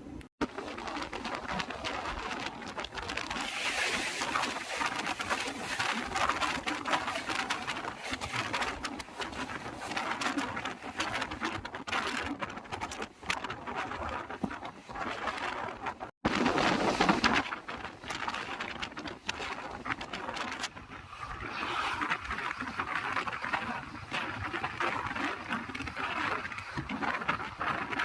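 Running noise of a moving passenger train heard from aboard: a continuous rush with rattling and clatter from the coach and wheels on the rails. It cuts out for an instant about halfway through and resumes.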